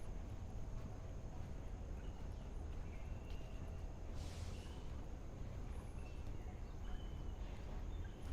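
Quiet forest ambience: faint, short bird chirps now and then over a steady low rumble, with a brief rustling hiss about four seconds in.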